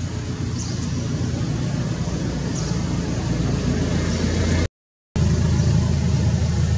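A motor vehicle engine running steadily with a low hum, growing a little louder, and cutting out completely for about half a second near the end.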